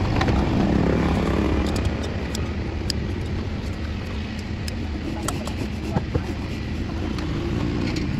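Steady low rumble of road traffic, with a few short sharp clicks and taps scattered through it.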